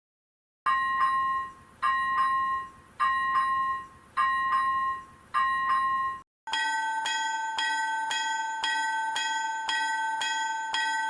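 Railroad level-crossing warning bells. First a slower bell rings five separate strokes about a second apart. After a brief gap a second crossing bell takes over with a faster, steady clanging, about two strikes a second.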